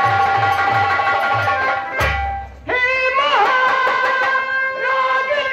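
Live stage-drama music: held melody tones over drum beats at about three a second, a sharp hit about two seconds in, then a man begins singing a line of long, held notes over the accompaniment.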